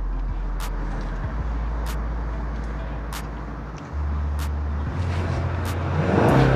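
Kia Stinger's 2.5-litre turbocharged four-cylinder idling through its quad-tip exhaust with a steady low rumble, then revved about six seconds in, the pitch rising and falling. A sharp click repeats about every second and a quarter.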